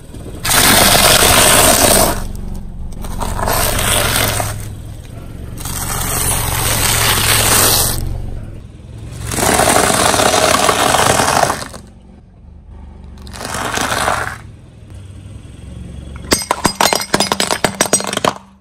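A car tyre slowly crushing dry crunchy food, first blocks of instant noodles and then a long row of stacked potato crisps, in several long bursts of crackling crunch over a low engine hum. Near the end a rapid run of sharp cracks follows as the tyre snaps a row of hard plastic plates.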